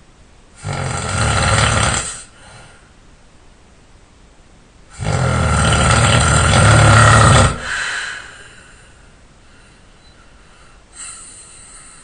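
A person snoring loudly and hard: two long snores about four seconds apart, the second longer and louder, then a short, faint one near the end.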